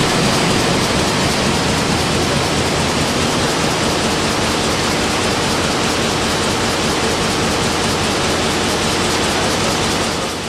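Heidelberg sheetfed offset press with a CITO RSP system in its coating unit, running at production speed, about 18,000 sheets an hour on its display. It makes a loud, steady mechanical noise.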